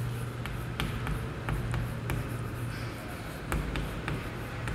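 Chalk writing on a chalkboard: a run of short taps and scratches as the letters are stroked out, over a steady low hum.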